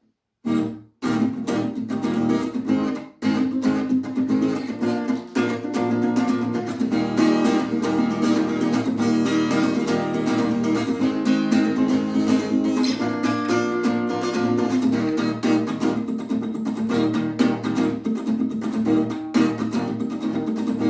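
Acoustic guitar strummed in a steady rhythm, the instrumental intro of a song, starting about half a second in after a couple of brief stops.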